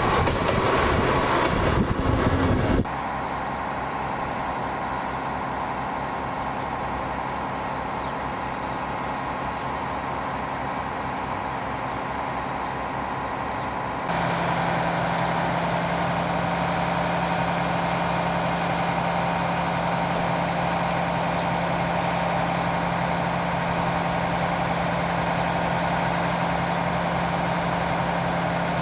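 Redhen diesel railcar passing close by for the first few seconds, then its diesel engine idling steadily while the railcar stands still. About halfway through a steady low hum comes in and the idle sounds louder and closer.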